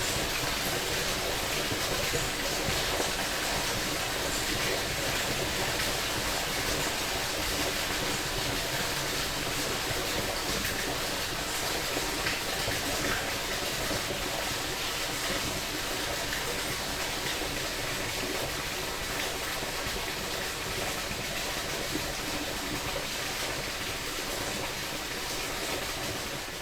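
Steady, unbroken rush of a creek's flowing water.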